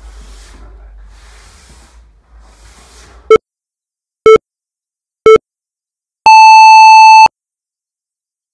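Interval-timer countdown: three short beeps a second apart, then one long, higher beep about a second long that marks the start of the work interval. Before them, faint swishes of a fencing shoe sliding out and back across a wooden floor.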